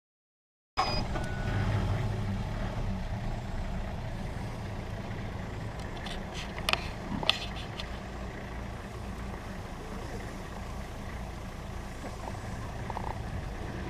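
Vehicle engine idling, a steady low rumble that starts abruptly under a second in, with a few sharp clicks about halfway through.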